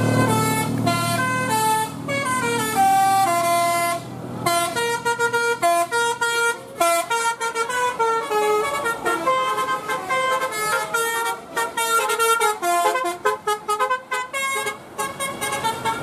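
Bus telolet horn, a set of air horns sequenced by a DAV horn module, playing a fast melody of short stepped notes, with a short break about four seconds in. A low engine rumble lies under the first second or so.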